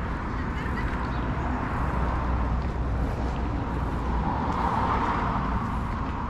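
Road traffic going by steadily, with one vehicle's tyre noise swelling as it passes about four to five seconds in, then fading.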